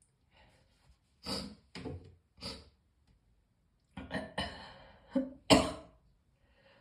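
A person's morning coughing fit: three short coughs about half a second apart, then after a pause a longer, rougher run of coughing ending in one loudest cough.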